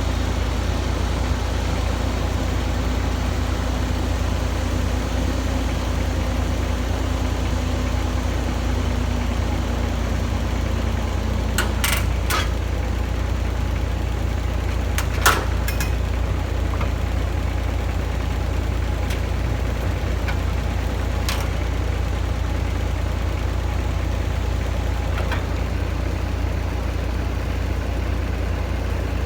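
Heavy diesel excavator engine running steadily at low revs, a deep continuous rumble. A few short, sharp clanks cut through it, the loudest about halfway.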